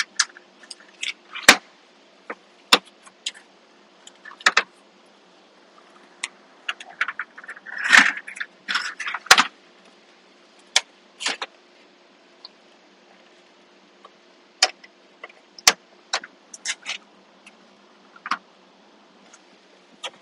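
Scattered sharp plastic clicks, taps and light scrapes as a 9-inch aftermarket instrument-cluster screen and its mounting clip are handled and seated into the holes along a Tesla Model 3's dashboard trim. A denser burst of rattling and scraping comes about eight seconds in.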